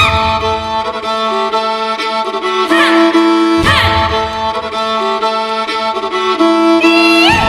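Background music: a melody with sliding notes over a steady held drone.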